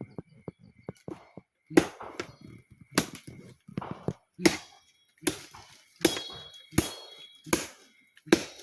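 A series of sharp, heavy knocks at a steady pace of about one every three-quarters of a second, some leaving a brief ringing tail.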